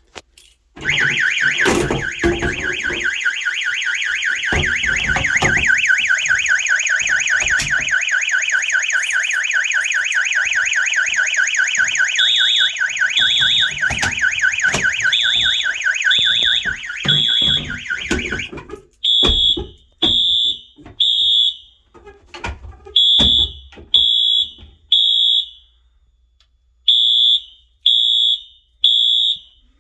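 Fire alarm system sounding in test: a loud, fast-warbling electronic tone joined by a higher beep in the temporal-three pattern (three beeps, a pause, repeated). The warble cuts off about 18 seconds in, leaving the three-beep pattern. A few low thumps come early on.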